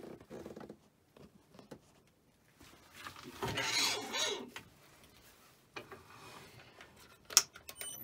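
Handling noises at a wood lathe during set-up: a scraping, sliding rub about three and a half seconds in, then a single sharp metallic click a little past seven seconds in, followed by a few lighter clicks.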